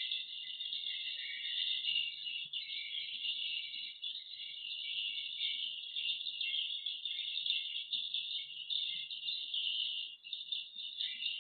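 Edible-nest swiftlets twittering in a dense, continuous chorus of high chirps with no pause.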